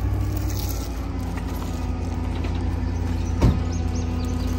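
A vehicle engine running steadily with a low drone, and a single sharp knock about three and a half seconds in.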